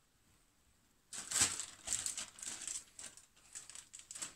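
Plastic freezer bag full of sliced oranges and lemon crinkling in irregular bursts as hands squeeze it and press the air out. It starts about a second in.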